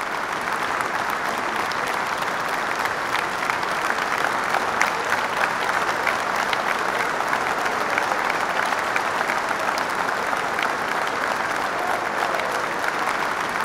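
Steady crowd applause, many hands clapping at once in a dense, even patter.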